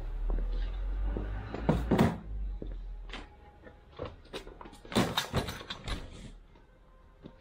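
Knocks and thumps of things being handled and set down in a car as it is being packed, with a low rumble for the first three seconds and a cluster of sharper knocks about five seconds in.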